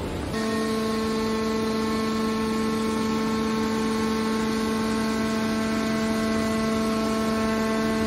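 Hydraulic power unit of a scrap metal baler running: a steady, even whining hum from the pump and motor as the hydraulic cylinder folds the baler's lid down. The hum cuts in abruptly just after the start.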